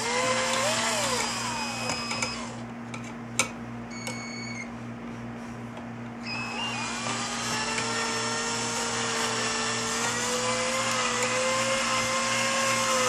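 Electric drill spinning a brass cleaning rod with a patch puller and patch through a Mosin-Nagant rifle's bore and chamber to pull out cosmoline. The motor whines for about two and a half seconds and stops. After a pause with a single click, it starts again about six seconds in, rises in pitch and then runs steadily.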